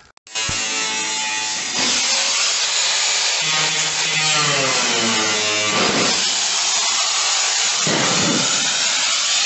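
Makita angle grinder with a thin cutting disc cutting through a sheet of steel. The motor starts just after the beginning and grows louder about two seconds in as the disc bites into the metal. Its pitch sags and recovers as the disc is pushed along the cut.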